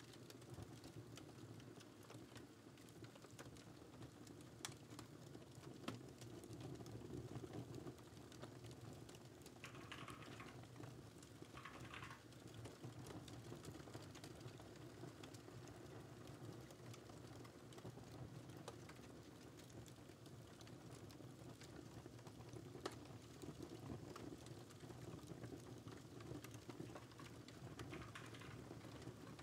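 Faint computer keyboard typing over a low, steady crackling fire, with a few sharper pops standing out.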